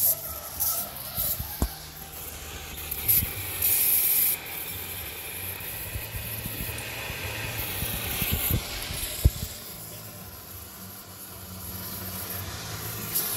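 Oxy-acetylene torch flame hissing steadily while it heats a steel rivet to red heat for hot riveting a Jeep frame. Several sharp clicks, the loudest about nine seconds in.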